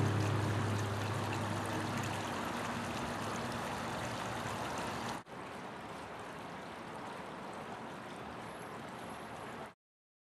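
Garden water fountain: a stream of water pouring from a spout into a large bowl, a steady splashing hiss, with the last note of acoustic guitar music dying away in the first couple of seconds. About five seconds in it cuts to a quieter steady hiss, which stops suddenly near the end.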